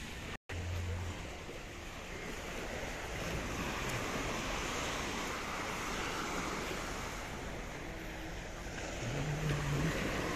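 Low surf breaking and washing onto a sandy beach, with wind buffeting the microphone. The sound cuts out for an instant about half a second in.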